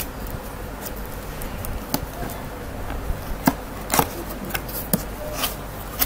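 Cardboard box being handled and opened: a string of sharp clicks and rubs from the flaps, a few of them loud in the second half.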